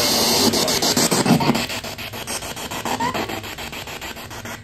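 P-SB7T spirit box sweeping through radio frequencies: a loud hiss of static chopped into quick, even pulses, several a second.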